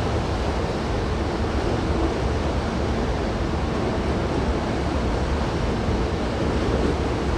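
Steady, even rumble and hiss of a busy railway terminus platform, with electric-train noise blended in and no distinct events.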